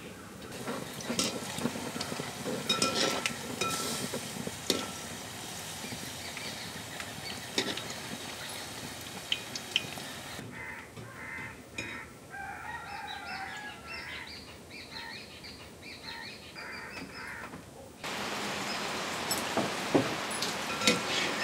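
Hot oil sizzling and crackling as batter fritters fry in a metal pan over a wood fire. About halfway through, birds give short repeated calls, and near the end a steady patter of rain comes in.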